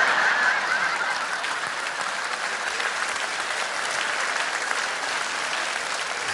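A theater audience applauding. The applause is loudest at the start and then holds steady.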